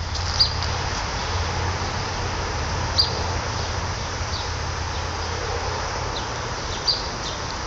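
Outdoor ambience in an overgrown garden: a steady hiss with a low hum beneath it, broken by a few short, high bird chirps, about half a second in, around the three-second mark and near the end.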